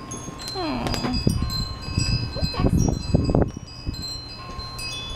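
Wind chimes ringing with scattered, overlapping high tones. About half a second in there is a short falling voice-like call, and the loudest part is a run of low bumps and rustling in the middle.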